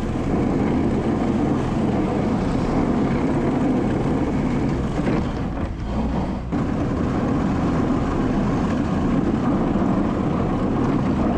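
Skid steer engine running steadily while its rotary brush attachment sweeps snow, easing briefly about six seconds in.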